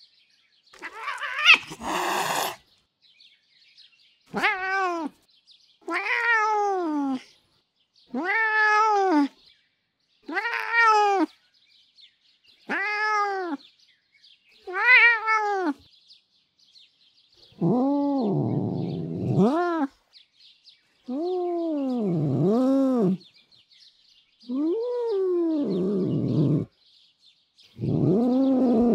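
A tomcat's angry yowl ending in a hiss, then six annoyed meows about two seconds apart, each rising and falling in pitch, then a run of long, low growls and grumbles.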